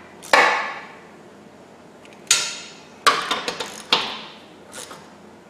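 Hand ratchet and socket clanking against a steel rock slider while its bolts are tightened by hand: sharp metallic knocks that ring on after each hit, about five spread out, with a quick run of clicks just after three seconds.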